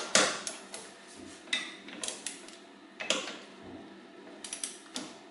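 Click-type torque wrench tightening rear wheel hub bolts: a run of sharp metallic clicks and ratchet ticks, the loudest right at the start and the others spaced about a second apart. The wrench clicks over as a bolt reaches its set torque of 80 to 90 newton meters.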